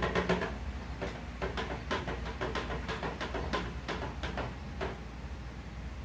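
Freshly anodized aluminum part being swished in a container of baking soda water, giving irregular clicks and taps, several a second, that thin out near the end. The baking soda rinse neutralizes the sulfuric acid left from the anodizing bath.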